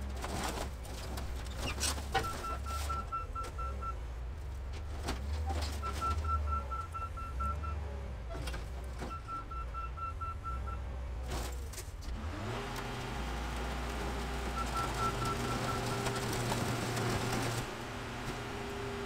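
Diesel engine of a wheel loader running, with clanks of metal as a pickup is set onto the car crusher and rapid electronic beeping in short bursts. About twelve seconds in, the car crusher's hydraulics come on with a rising hum. The lid comes down on a Ford F-150 and a car with a loud crunching noise that stops sharply near the end, leaving a steady hydraulic hum.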